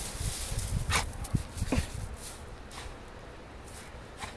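A dog playing and rolling in snow, making a few short sounds, most of them in the first two seconds and one near the end, over a low steady rumble.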